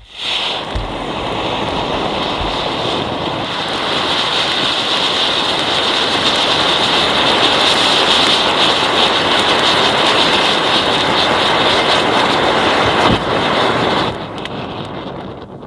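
A Vulkan (volcano) fountain firework burning and spraying sparks: a loud, steady rushing hiss for about fourteen seconds, with a single sharp crack shortly before it stops suddenly near the end.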